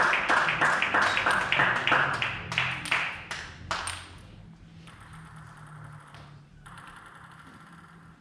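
Spectators clapping together in a steady rhythm, about four or five claps a second, dying away about three to four seconds in; a few faint scattered taps follow.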